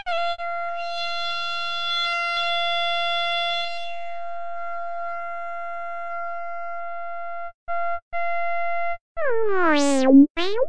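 Electronic synthesized tone held at one steady pitch for about seven seconds, then broken into two short blips. Near the end it slides down in a long falling glide, then swoops back up.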